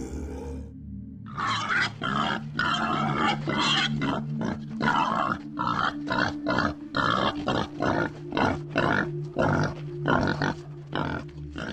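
Pig grunting in a rapid series of short calls, about two or three a second, starting about a second in, over background music with steady held notes.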